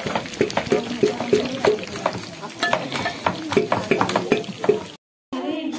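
A metal ladle stirring vegetables in a black iron wok over a wood fire, clinking against the pan about three times a second over the sizzle of frying.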